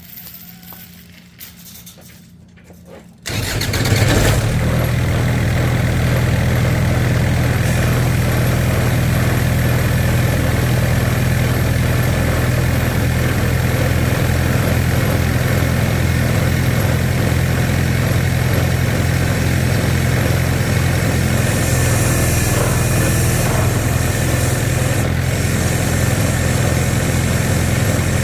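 Diesel engine of an old combine, driving the hydraulic pump of a homemade log splitter, comes in suddenly about three seconds in and then runs steadily.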